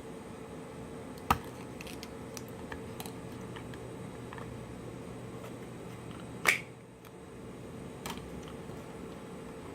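Sharp clicks and light taps of small repair tools and parts being handled on a smartphone during disassembly, two clicks much louder than the rest, over a steady faint hum.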